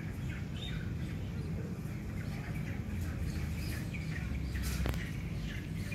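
Small birds chirping in short, scattered calls over a steady low rumble, with a sharp click about five seconds in.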